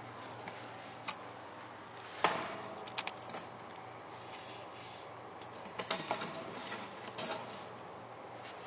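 Handling knocks and clicks as a garden hose with a brass fitting and an air chuck are moved around a tire on a concrete floor: one sharp click about two seconds in, then a few lighter clicks and taps.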